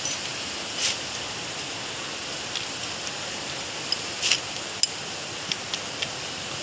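Scattered light metal clicks and taps as a wrench is fitted onto a nut on a power steering rack's pinion housing, the loudest about a second in and again about four seconds in, over a steady hiss.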